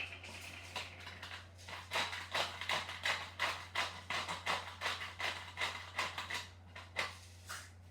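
Pepper mill being twisted to grind black pepper: an even run of grinding clicks, about two or three a second.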